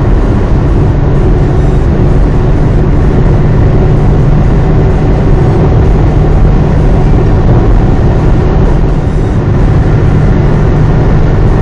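Steady road and engine noise of a Toyota Vios being driven, heard from inside the cabin, with a constant low hum.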